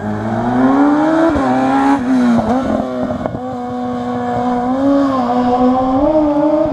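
Rally car engine accelerating hard up the hill climb. Its pitch rises and drops twice as it shifts up through the gears, then holds fairly steady at high revs with small wobbles.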